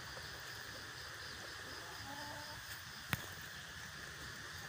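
Steady insect drone in forest, with a faint brief call about two seconds in and a single sharp click just after three seconds.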